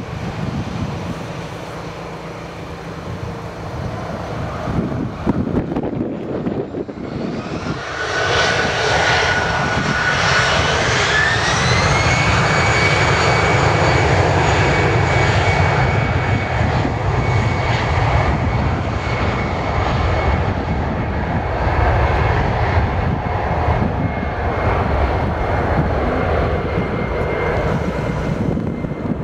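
Jet airliner's engines spooling up to take-off thrust. Louder from about eight seconds in, with a whine that climbs in pitch and then holds steady over a continuous rumble as the aircraft rolls down the runway.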